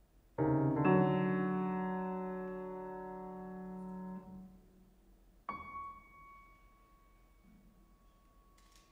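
A loud piano chord struck, then struck again a moment later, ringing and fading until it is cut off abruptly about four seconds in. About a second later a single high piano note sounds and rings on, fading slowly, with a faint click near the end.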